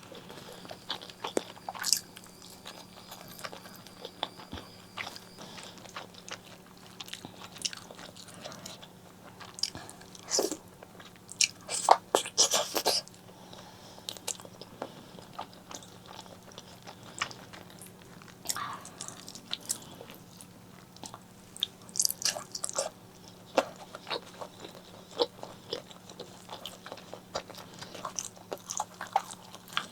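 Close-miked eating of spicy pork leg curry with eggplant and rice: irregular biting and chewing clicks with some crunching. A louder run of bites comes about twelve seconds in. A faint steady hum runs underneath.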